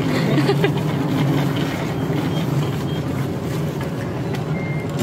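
Steady hum of city traffic, with a brief faint high beep near the end.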